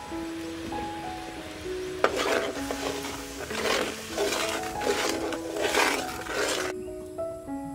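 A metal ladle stirring and scraping sauce with garlic in a steel wok over a wood fire. The frying sizzles under a run of repeated stirring strokes from about two seconds in, with background music throughout. The cooking noise cuts off suddenly shortly before the end.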